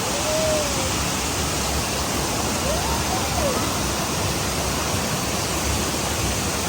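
Steady rushing of a cascading waterfall, with faint brief voices over it.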